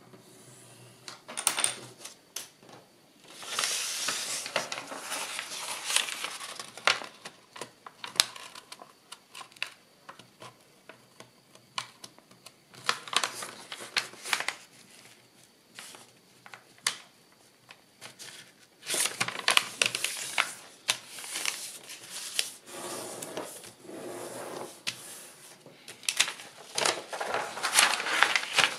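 Brown kraft paper being folded, creased and smoothed by hand: bursts of rustling and crinkling as the sheets slide and are pressed flat, with sharp clicks and taps in between.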